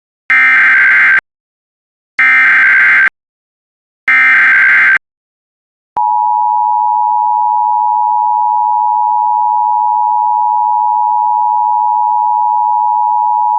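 Emergency Alert System alert tones: three short bursts of the SAME digital header, an electronic screech each lasting just under a second, about a second apart, encoding a Civil Emergency Message for Pinal County, Arizona. About six seconds in, the steady two-tone EAS attention signal begins and holds.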